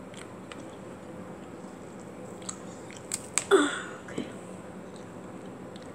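Close-miked eating of a raw apple: a few small mouth clicks, then one loud crunching bite about three and a half seconds in, followed by a small knock.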